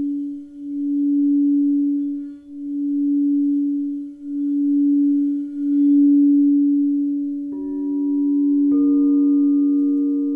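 Singing bowl sounding a steady low tone that swells and fades about every two seconds and does not die away. Near the end, two strikes a little over a second apart add higher ringing tones over it.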